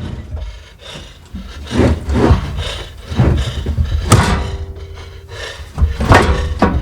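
Fifth-wheel hitch parts being handled and shifted into place: a series of knocks and scraping, with a sharp clank about four seconds in.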